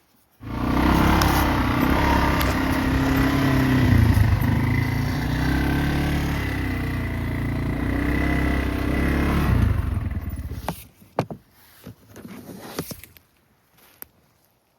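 Engine of a small vehicle being ridden, its pitch rising and falling with the throttle, then dying away about ten seconds in, followed by a few clicks and scrapes.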